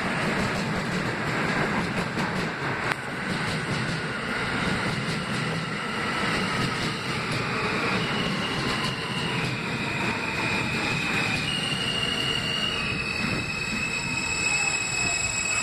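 R160B subway train with Alstom propulsion pulling into a station and braking: steady rumble and rattle of wheels on rail, with a whine that falls in pitch as the train slows. High steady brake squeals join in the second half.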